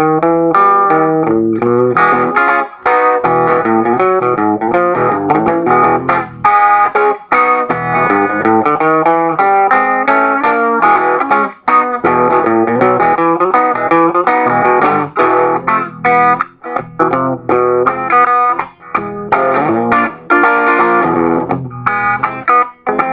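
Stratocaster-style electric guitar played in a driving blues-boogie style: quick runs of picked notes and chords, with brief breaks between phrases.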